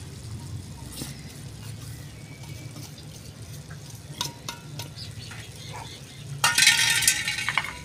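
Pot of pulao simmering with a low, steady rumble. A light metal tap comes about four seconds in, and near the end a steel lid clatters and scrapes loudly against metal, ringing briefly.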